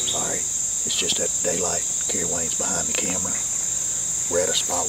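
A steady, high-pitched insect chorus rings on one unbroken note throughout.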